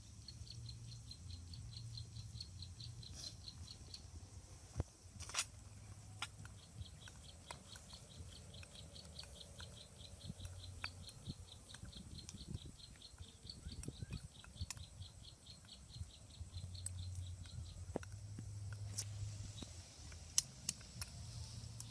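Faint, even chirping of an insect, about four or five short high pulses a second, pausing briefly about five seconds in and stopping near the end. Scattered sharp clicks of a metal spoon against a small metal bowl.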